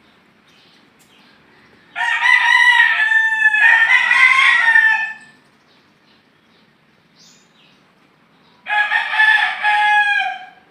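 A rooster crowing loudly twice: a long two-part crow about two seconds in and a shorter crow near the end.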